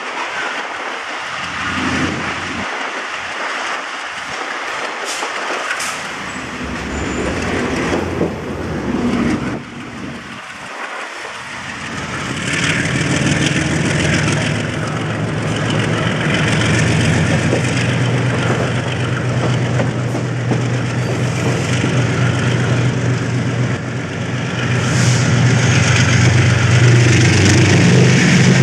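South African Railways Class 34 GE diesel-electric locomotive pulling away with a train, heard from the side of the cab. At first mostly running noise with a few clicks, then a little before halfway the diesel engine's deep, steady drone builds up, and it grows louder again near the end as the locomotive works harder.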